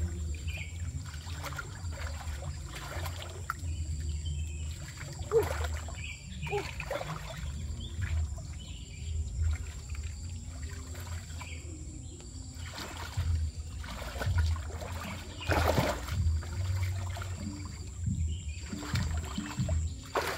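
Shallow swamp water trickling and splashing now and then as someone works in it, over a steady low rumble; the strongest splashes come about five seconds in and again near sixteen seconds.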